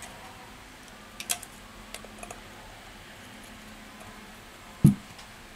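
A small metal blade tool scraping and picking leftover broken display glass off a phone's metal mid-frame: a few faint sharp clicks, then one louder dull knock near the end.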